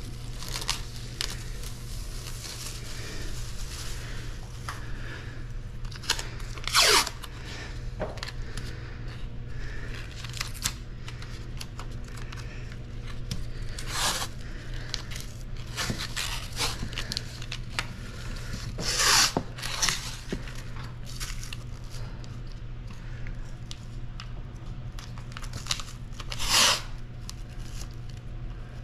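Masking tape ripped off the roll in short rips, four of them loud, with plastic masking sheet crinkling and rustling in between, over a steady low hum.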